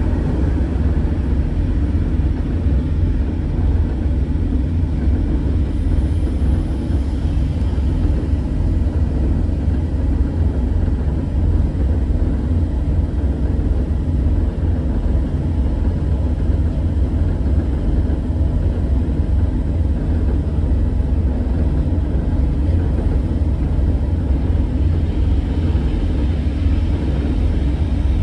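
Steady low rumble of diesel locomotive engines and a train running past on the adjacent track, heard from inside a heritage railway coach.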